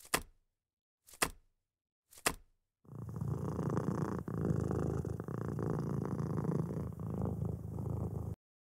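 Three short sound effects about a second apart, then a domestic cat purring for about five seconds, a steady low rumble that cuts off suddenly near the end.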